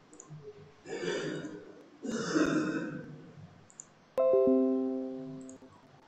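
Two short breathy noises, then a computer notification chime: a sudden, piano-like chord of several tones that rings and fades away over about a second and a half.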